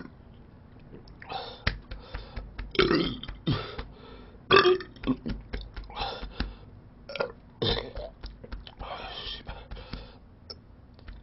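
A man burping repeatedly: a string of short belches with brief pauses between them.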